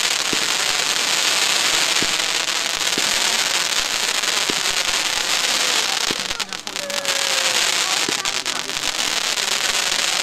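Consumer firework cake firing shots one after another over a continuous dense crackle. After about six seconds the crackle breaks up into many separate sharp pops.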